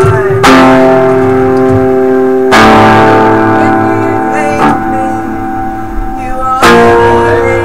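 Amplified guitars and bass playing slow, ringing chords. A new chord is struck about every two seconds and left to sustain and fade before the next.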